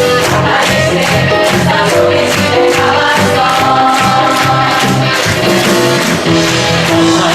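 Live concert music from a band, with a steady beat and long held notes.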